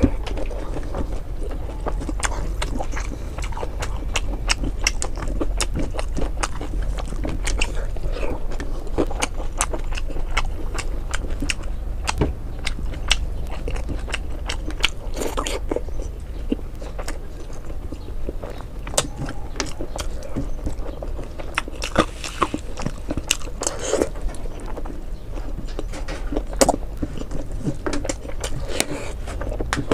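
Close-miked chewing and lip smacking of a person eating rice and fried fish by hand: a steady run of sharp, wet mouth clicks over a low hum.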